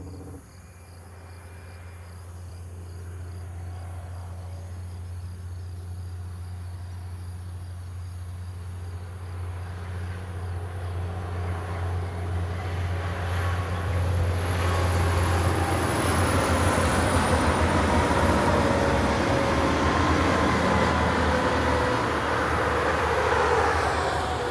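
Semi-trailer trucks approaching and passing on a highway: engine and tyre noise builds steadily and is loudest over the last ten seconds, with some pitched whine in it, over a steady low hum.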